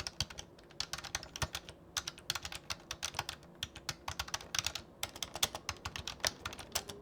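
Typing on an Ajazz AK820PRO mechanical keyboard fitted with Akko silent switches: a quick run of soft, muted key clicks with a few short pauses.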